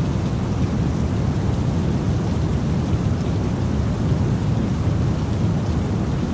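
Steady rain-and-thunderstorm ambience: an even, unbroken wash of noise, heaviest in a low rumble.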